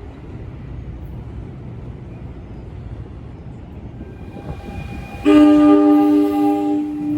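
Low rumble of a train on the tracks, then about five seconds in a train horn sounds one loud blast of about two seconds.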